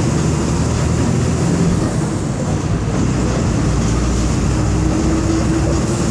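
Volkswagen 17.230 EOD bus's diesel engine running steadily while the bus is under way, a loud low drone mixed with rolling noise.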